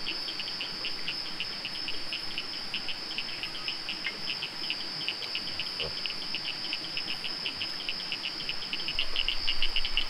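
Rainforest insect chorus: a steady high-pitched drone with a fast, evenly pulsing chirp beneath it, about five pulses a second, growing a little louder near the end.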